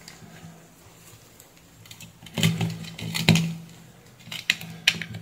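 Handling noise from the opened plastic epilator housing and its wiring: a few light clicks and knocks from about two seconds in, as the motor and switch are moved about by hand.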